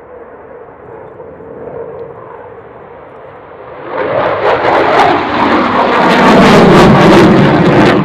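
Dassault Rafale fighter's twin jet engines, faint at first, then rising sharply about four seconds in to loud, full-power jet noise as the aircraft comes by.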